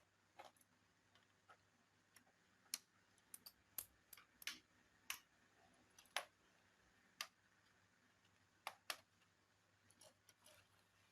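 Faint, irregular clicks and taps, about fifteen to twenty scattered unevenly, from the plastic and metal parts of an HP laptop being handled as it is taken apart.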